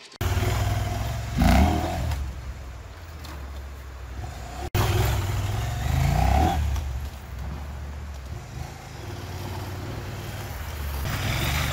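Adventure motorcycle engine running under way, revving up twice, about a second and a half in and again about six seconds in, over wind and road noise. The sound drops out sharply for an instant a little before the five-second mark.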